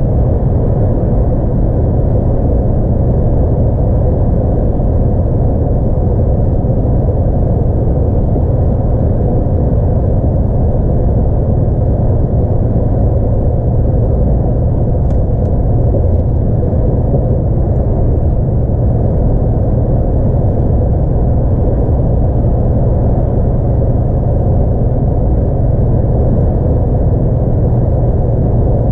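Steady low rumble of a DAF XF 106 truck's 10.8-litre, 440 hp diesel engine and road noise, heard from inside the cab while driving.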